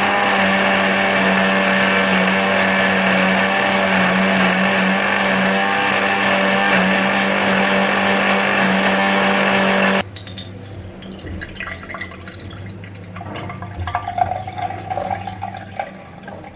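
Electric blender running steadily, blending apple and green leaves with water into juice, then switched off abruptly about ten seconds in. Fainter liquid sounds follow.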